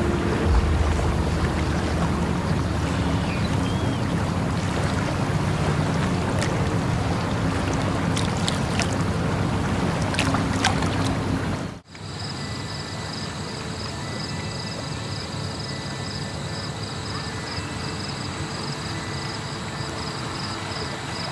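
Water rushing and lapping as a steady wash. It cuts off abruptly about twelve seconds in, and a quieter, steady high-pitched insect trill takes over.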